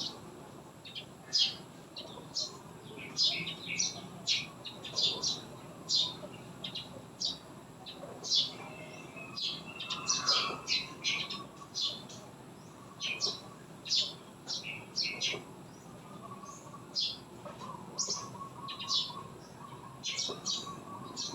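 Small birds chirping: a steady run of short, high chirps, several a second, with a fainter, lower call joining in the middle and again near the end.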